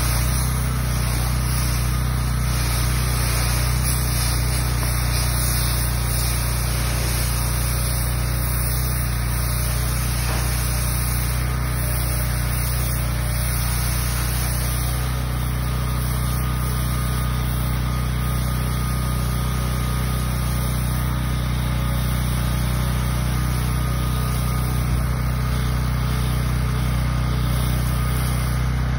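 DeWalt 4200 PSI gas pressure washer running steadily: its single-cylinder Honda GX390 engine runs at a constant speed driving the pump, while a 40-degree nozzle jets water onto sidewalk concrete with a continuous spray hiss.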